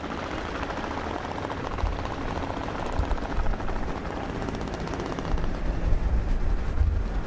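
A helicopter's rotor beating, mixed with rapid blank gunfire and dull low booms from mock-battle pyrotechnics, with heavier booms in the second half.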